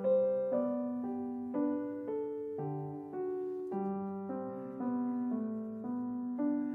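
Background piano music: a slow melody, with a new note or chord struck about every half second and each one fading.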